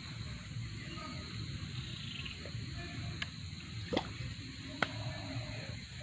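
Quiet riverside ambience: a steady low rumble, broken by three small sharp taps about a second apart in the second half.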